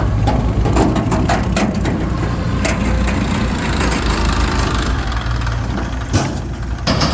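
Diesel engine running steadily, with a series of sharp cracks and clatter in the first few seconds. The sound changes abruptly near the end.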